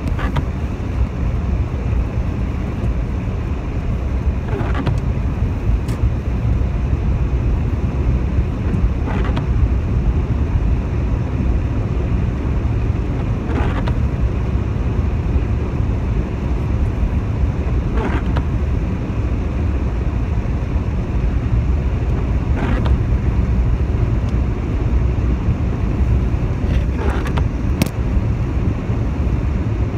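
Inside a moving car on a wet road: a steady low rumble of engine and tyres, with a fainter hiss above it. A faint short sound recurs about every four and a half seconds.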